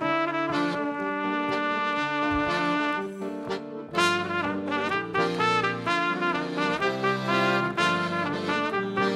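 Live instrumental music for a Breton folk dance: wind instruments playing a melody over held low notes. The playing thins out about three seconds in and comes back strongly a second later.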